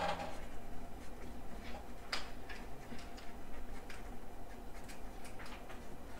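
Felt-tip marker writing on a paper legal pad: a series of short, irregular strokes, with a cluster of them about five seconds in.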